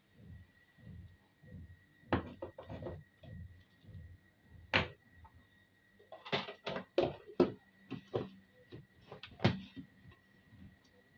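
Scattered knocks and clicks of objects being handled and set down, clustered more densely in the second half, over a faint steady high-pitched hum.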